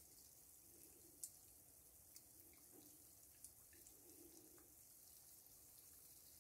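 Faint, steady hiss of gulab jamun dough balls deep-frying in oil and ghee at medium-low heat, with a few soft pops, the clearest about a second in.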